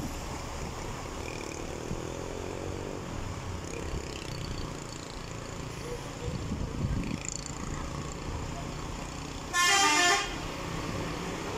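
Road traffic rumbling steadily, with one car horn honk lasting under a second near the end.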